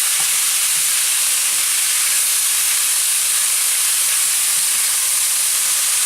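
Chicken pieces and parboiled green beans frying in hot canola oil in a wok set to sear: a steady, high-pitched sizzle.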